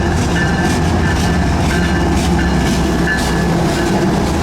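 CSX freight train rolling past, with a steady low diesel drone and repeated clicks of steel wheels over the rail joints, plus short brief squeals from the wheels.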